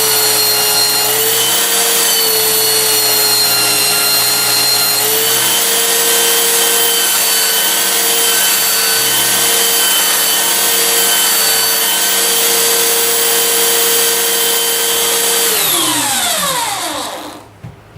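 High-pitched electric power tool motor switched on and running steadily, its pitch sagging slightly for a few seconds, then switched off and spinning down with a falling whine near the end.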